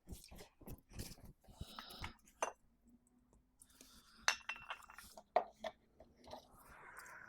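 Small metal parts and hand tools clinking and knocking as they are handled, with a few sharp clinks that ring briefly, and some rustling near the end.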